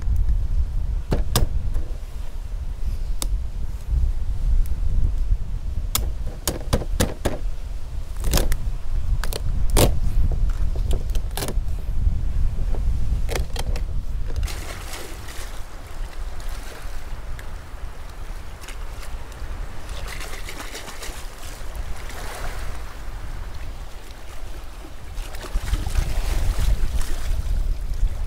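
Sharp clicks and cracks as a spiny lobster's shell is cut and broken apart with a knife on a wooden cutting board, over a low wind rumble on the microphone. About halfway through this gives way to the wash of shallow seawater, with splashing near the end as the lobster is rinsed in the sea.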